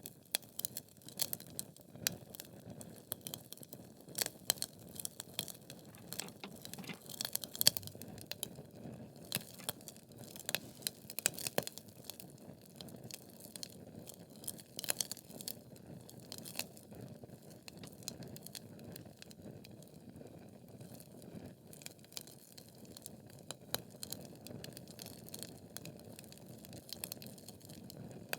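Wood logs burning in a fireplace: a steady low rush of flame under frequent irregular crackles and sharp pops, busiest in the first half, with the loudest pop a little under eight seconds in.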